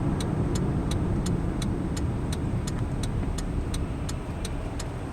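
A pickup truck driving, heard from inside the cab: a steady low rumble of engine and road noise, with a regular ticking about two and a half to three times a second.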